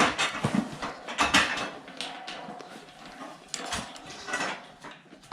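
Steel fire pit parts clanking and rattling against each other in a series of irregular knocks while being fitted together.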